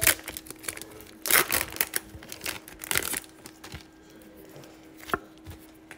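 Foil Pokémon card booster pack being torn open, its wrapper crinkling and crackling in irregular bursts, loudest in the first half, followed by quieter handling of the cards with one sharp click near the end.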